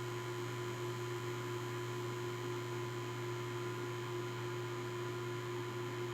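Steady electrical hum, with a thin steady tone above it, from a powered bench test rig of bench power supply and electronic load feeding a boost converter.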